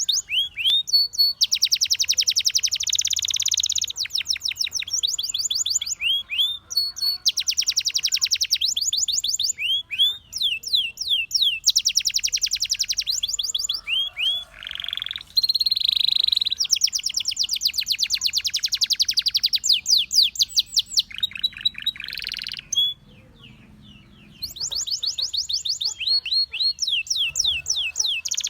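Domestic canary singing: phrases of very fast trills alternating with quick rising and falling whistled notes, with a short pause about two thirds of the way through.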